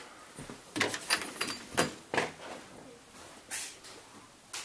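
Irregular knocks and clicks, about seven in all, clustered about one to two seconds in with single ones later and one near the end.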